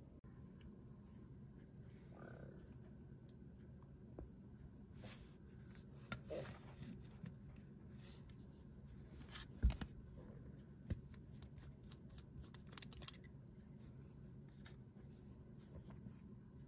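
Light clicks and taps of a fountain pen and its metal cap being handled on a tabletop, with one sharper click about ten seconds in.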